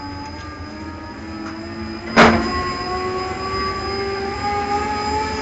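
SKD electric bus's electric drive whining with several steady tones that rise slowly as it gathers speed, heard from inside the passenger cabin, with a constant high whistle over it. A sharp knock about two seconds in.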